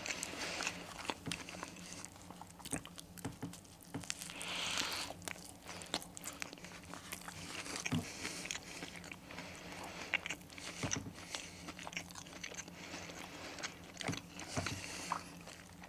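Chewing and biting into a crispy breaded chicken burger (Burger King's King's Crunchy Pepper Chicken), with irregular crunches and crackles from the fried coating throughout.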